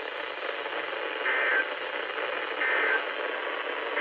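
Emergency Alert System end-of-message data bursts over radio static: three short two-tone digital chirps about a second apart, the code that closes a broadcast warning.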